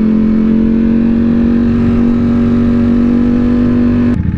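Ducati Panigale V4's V4 engine pulling at a steady high engine speed while riding, its pitch creeping slightly upward, then falling away abruptly near the end as the revs drop.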